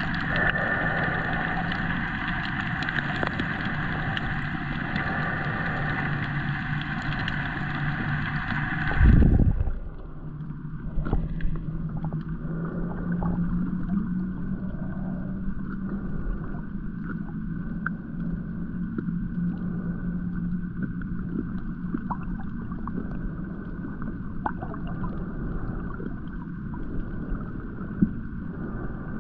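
Underwater ambience: a wash of water noise with a steady low hum running under it. About nine seconds in comes one loud low thump, and the sound changes at an edit, with the hum continuing slightly higher in pitch.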